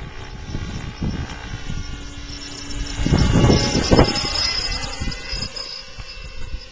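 Large electric RC helicopter flying past with a thin high whine, heard most from about three and a half seconds in as it comes close, then fading. Gusts of wind buffet the microphone throughout and are the loudest part, swelling about three to four seconds in.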